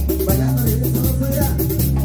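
Live band playing upbeat Latin dance music: drum kit, timbales and congas in a steady rhythm over a bass line.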